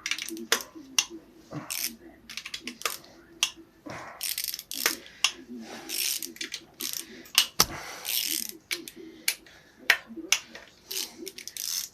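Ratchet wrench clicking in short runs, with metallic clinks of the tool on the engine, as crankcase bolts are loosened.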